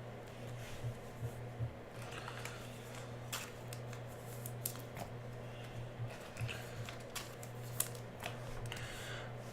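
Trading cards being handled and sorted: scattered light clicks and rustles over a low steady hum.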